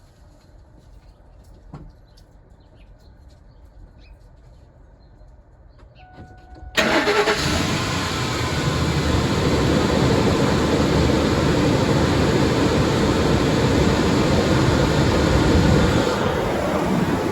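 A short beep, then about seven seconds in the 2004 Lincoln Navigator's 5.4-litre V8 starts and runs steadily. Its accessory belt has just been sprayed with WD-40, and no belt squeal is heard.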